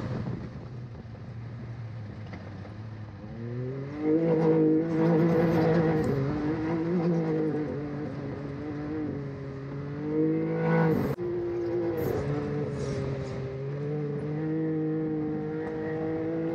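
Can-Am Maverick X3 race UTV's three-cylinder engine running hard under load, heard from inside the cab. Its pitch is low for the first few seconds, climbs about three seconds in and holds high, with a brief dip and a sharp knock about eleven seconds in.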